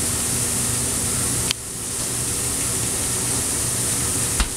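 Burger patties and chopped onions sizzling on a flat-top griddle, a steady high hiss. Two brief sharp clicks break it, about a second and a half in and near the end.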